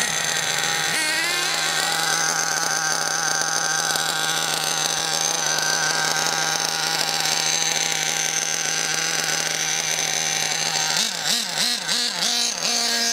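Nitro RC car's small glow-fuel engine idling steadily. Near the end the throttle is blipped four times, the pitch rising and falling, and it settles into a higher, steady note as the car pulls away.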